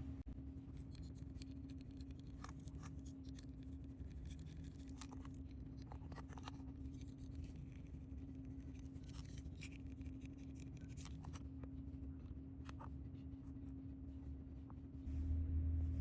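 Scattered light clicks and scrapes of small diecast truck parts and hand tools being handled during a wheel swap, over a steady low electrical hum. A louder low hum starts near the end.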